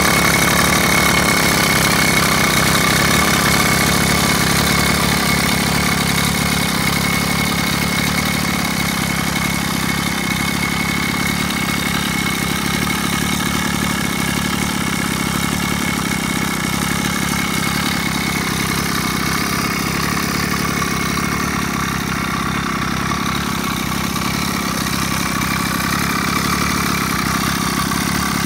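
Two-stroke motorized-bicycle kit engine idling steadily.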